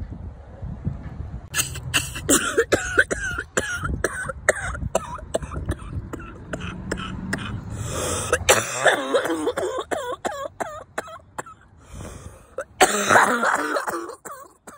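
Repeated coughing and throat clearing, many short hacking coughs in quick succession, with a low steady hum underneath until about halfway.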